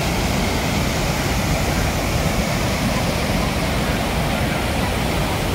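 Water pouring over a lake's overflow weir and churning in the spillway below: a loud, steady rush.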